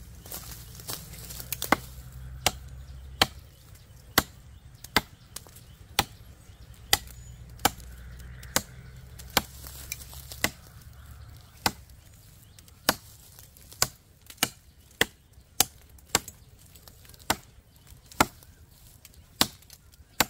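A 10-inch KRM Bamboo chopping knife with an L6 steel blade chopping into the green trunk of a small rain tree: a steady series of sharp chops, about one a second, some twenty strikes in all.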